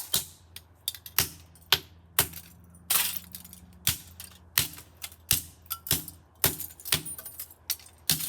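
Repeated sharp hits smashing the plastic casing and insides of a Kidde KN-COB-LP2 carbon monoxide detector. The clacking blows come about two a second at an uneven pace.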